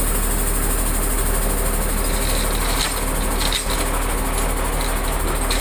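Diesel engine of heavy machinery running steadily at a constant speed.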